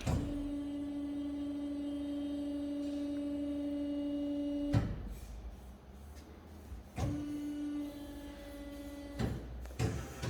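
Hydraulic pump motor of an Ajax AJBS460SA bandsaw running with a steady hum for about five seconds, then cutting off with a click. It runs again for about two seconds a couple of seconds later and stops with another click.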